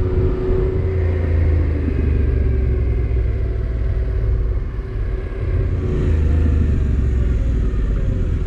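Motorcycle engine running under way, with rumble and road noise, easing off briefly about five seconds in and then pulling again.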